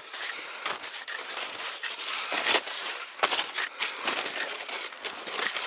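Skis shuffling and crunching through fresh snow in irregular strides, a few louder scrapes in the middle. The snow is sticking to the skis, so they drag instead of gliding.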